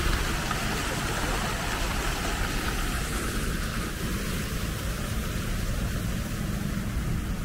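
Steady noise of city traffic, an even wash with no single passing car standing out.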